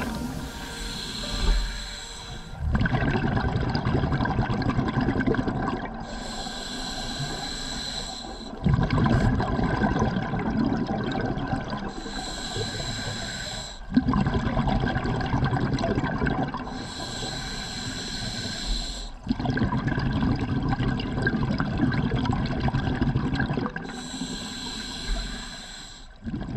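A scuba diver breathing through a regulator: short hissing inhales alternate with longer rumbles of exhaled bubbles, about every five seconds.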